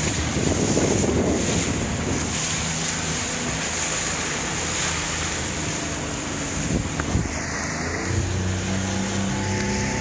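Small skiff under way in choppy water: its outboard motor running steadily under wind buffeting the microphone and water rushing and splashing against the hull. A couple of sharp knocks about seven seconds in, typical of the hull slamming into waves.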